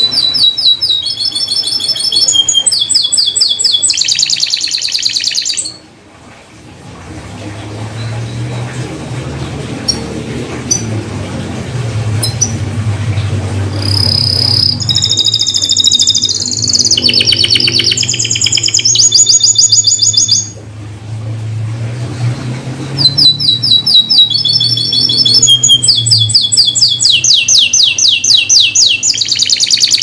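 Domestic canary song in three bouts of rapid trills. Each trill is a quick run of repeated high notes, and the pitch switches every second or so. Long pauses separate the bouts, and a low hum runs underneath in the middle stretch.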